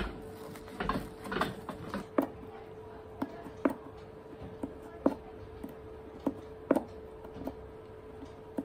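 Short, light clicks of a small metal hand tool working the welt edge of a leather boot, about two a second, over a steady low hum.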